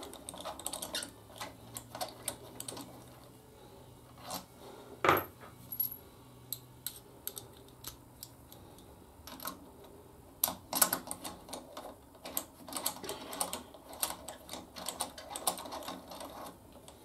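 Irregular metallic clicks and taps of hand tools and bolts working on a motorcycle brake caliper, with one louder knock about five seconds in and a busier run of clicking later on.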